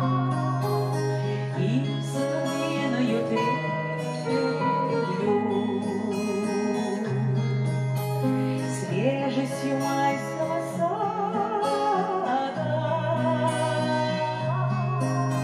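A woman singing a slow lullaby with wide vibrato into a microphone, accompanied by an acoustic guitar and an accordion holding sustained chords.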